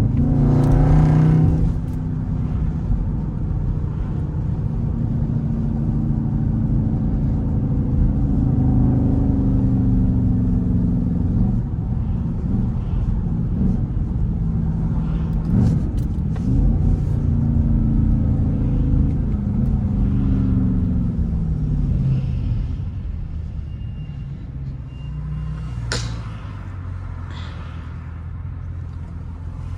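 Straight-piped Jeep Grand Cherokee SRT8 HEMI V8 exhaust while driving. It revs up hard in the first two seconds, then rumbles on with its pitch falling and rising through acceleration and gear changes. For the last several seconds it eases off to a quieter cruise.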